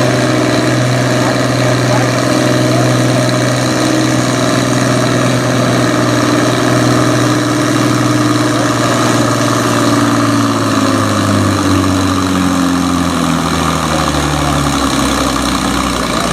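A pulling farm tractor's diesel engine runs loud and steady at high revs. About ten seconds in, the revs sag, falling steadily in pitch over several seconds as the engine is pulled down.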